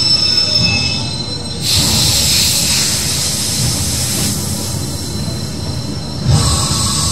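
Metalworking factory machinery noise: high, steady metallic squealing tones, then a hissing rush that sets in about a second and a half in and lasts several seconds, and a knock near the end.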